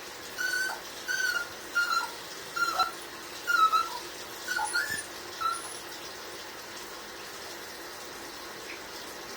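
A dog whining in short high-pitched cries, about seven of them in quick succession, which stop about five and a half seconds in.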